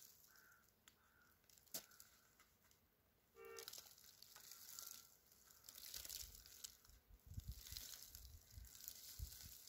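Faint crumbling and rustling of soil being pushed into a plastic sleeve tied around a walnut graft, with soft handling knocks in the second half.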